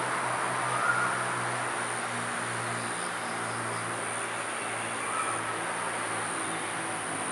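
Insects chirring steadily outdoors, a high-pitched, slightly pulsing drone, over a low steady background hum, with a faint short call about a second in and again near five seconds.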